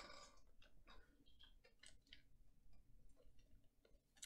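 Faint clicks and ticks of trading cards being handled and set down on a table, over near silence; the clearest click comes right at the start.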